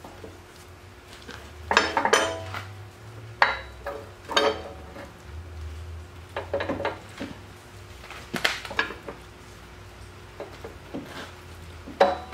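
Steel excavator-thumb mounting parts and pins clanking and clinking as they are handled, with several sharp metal knocks at irregular intervals and a loud one near the end.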